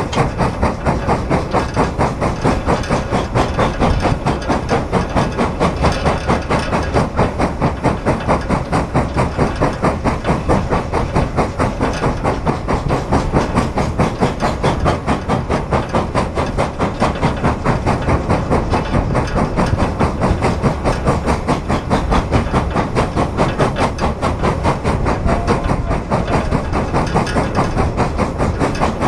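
Frisco 1630, a 2-10-0 Decapod steam locomotive, chuffing in a fast, even rhythm as it works hard hauling a heavy freight train of 135 empty cars, heard close up from its tender.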